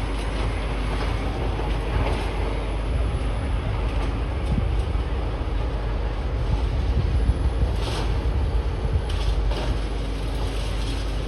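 Steady rumble of excavators working on a demolition site, clearing rubble, with a few faint knocks near the end.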